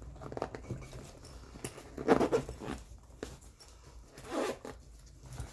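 Zipper on a belt-kit pouch being pulled, in three separate strokes, the middle one the loudest: the pouch being zipped shut after packing.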